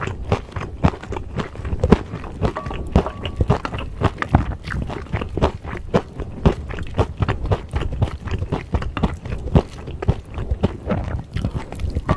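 Close-miked chewing and mouth sounds of someone eating beef bulgogi with soybean sprouts and glass noodles: rapid, irregular wet clicks and smacks, several a second.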